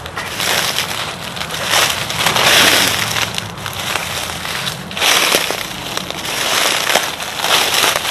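Footsteps crunching and rustling through thick dry leaf litter, in uneven surges as each step lands.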